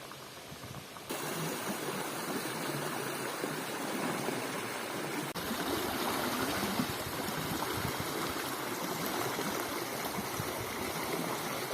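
Steady rushing of flowing water, like a stream, which gets louder abruptly about a second in.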